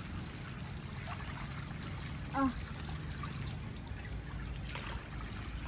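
Steady trickle of water from an inflatable whale pool's sprinkler spout falling into the pool water. A short child's vocal sound comes in briefly about two and a half seconds in.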